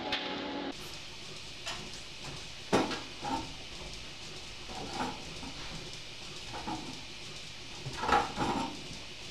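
Metal clanks and knocks from milking-parlour equipment as milking clusters are handled and attached, over a steady hiss. The loudest knocks come a little under three seconds in and about eight seconds in. A steady hum with even tones cuts off under a second in.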